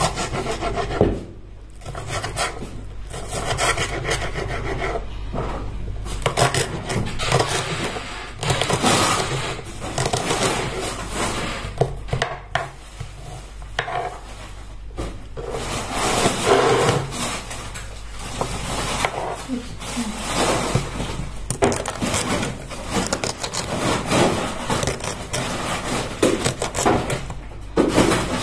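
Kitchen knife cutting vegetables on a wooden cutting board, with a run of irregular slicing and scraping strokes.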